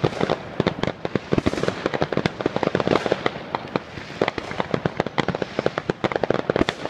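New Year's fireworks going off: a rapid, irregular string of bangs and pops, several a second, with crackling between them.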